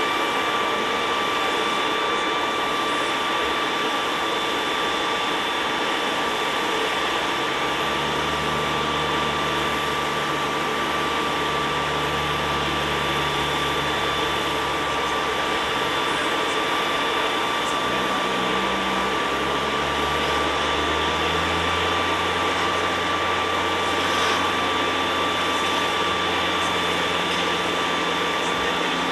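Jet aircraft engines running steadily nearby: a loud hiss with a high turbine whine. A deeper drone joins about eight seconds in and shifts in pitch a few times.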